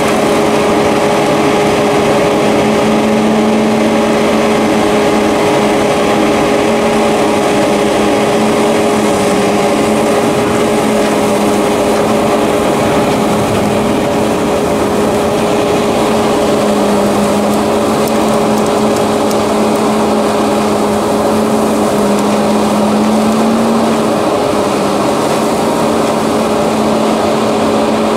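Fendt 720 Vario tractor's six-cylinder diesel running steadily under load, driving a Herder flail mower and suction arm that cuts and sucks up the ditch-bank grass: a steady mechanical hum with a constant whine.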